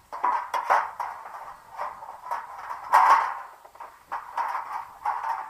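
Sheet-metal sections of a patio heater's reflector hood being handled and slid together on a wooden table: irregular scraping and rattling with a few sharp knocks, loudest about three seconds in.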